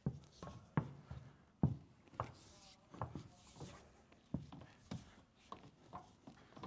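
Vent hose being slid down behind a metal support tube, bumping and rubbing against it in a series of irregular light knocks.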